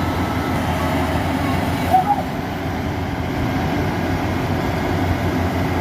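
Heavy farm machinery's diesel engine running steadily, with a brief sharp sound about two seconds in.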